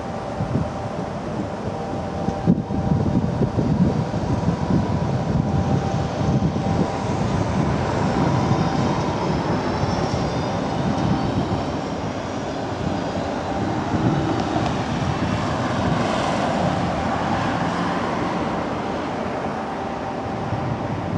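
A tram running past on its tracks amid road traffic: a steady rumble with a faint hum over it.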